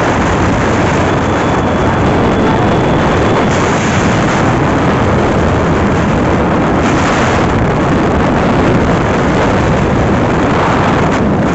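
Steady rush of wind over the microphone of a moving motorcycle, with the motorcycle's engine and road noise beneath it.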